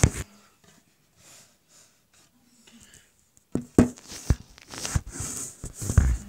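A phone being handled and moved about close to the microphone: a few sharp knocks at the start, a cluster of knocks a little past halfway, then rustling that ends in a heavy thump near the end, the loudest sound here.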